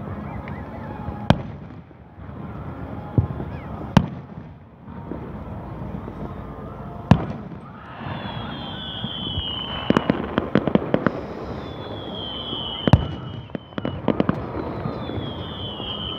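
Aerial fireworks shells bursting with sharp bangs every few seconds. In the second half come clusters of rapid crackling and three falling whistles.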